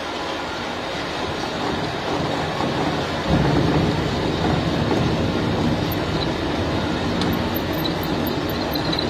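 Mini lathe set up as a milling machine, its spindle-driven cutter running and cutting teeth into a metal disc: a steady machining noise that gets louder about three seconds in.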